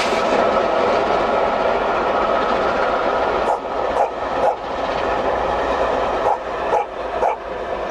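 Steam-hauled passenger train, LMS Princess Coronation Pacific 6233 Duchess of Sutherland and its coaches, passing at speed with a steady rush of noise. From about halfway, the coach wheels click over rail joints in groups of two or three.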